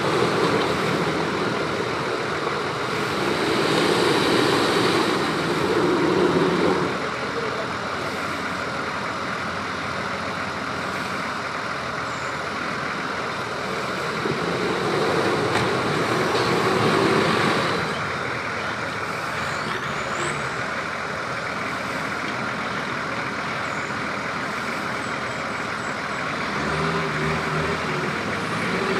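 Off-road 4x4 vehicle engines running under load, growing louder twice as the engines are worked harder.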